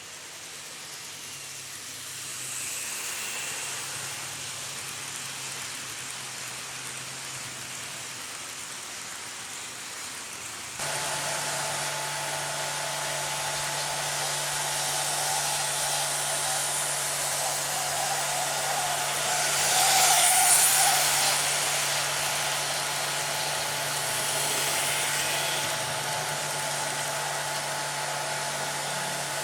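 Model train running on the layout: a steady motor hum with wheel and rail noise. It gets suddenly louder about eleven seconds in and swells around twenty seconds, as if passing close.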